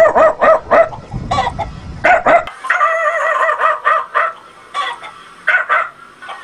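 High-pitched dog barking and yelping, real and imitated by a man's voice. Short, sharp barks come in quick succession for the first couple of seconds, then longer wavering cries.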